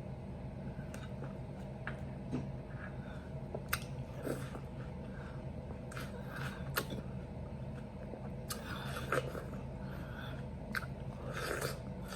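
A person biting and chewing juicy watermelon slices topped with fruit and whipped cream, with wet mouth sounds and scattered sharp clicks. A steady low hum runs underneath.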